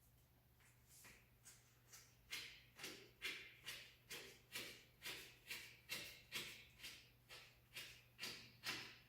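Faint, regular hand strokes, about two a second, made while working on a punctured bicycle inner tube: air pumping or sanding the tube for a patch.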